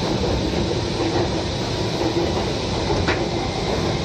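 Metro train running between stations, heard from inside the carriage: a steady noise of wheels on rails and motors, with one short click about three seconds in.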